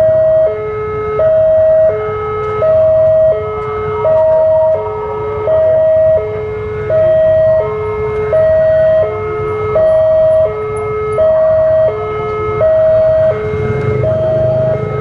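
Railway level-crossing warning alarm sounding a steady two-tone electronic signal, a higher and a lower tone alternating about every three quarters of a second, warning that a train is approaching. A low rumble builds near the end.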